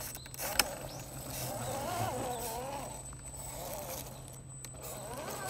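Axial SCX10 II 1:10 RC crawler's electric motor and gear drive whining as it crawls over rock, the pitch rising and falling with the throttle. A single sharp click sounds about half a second in.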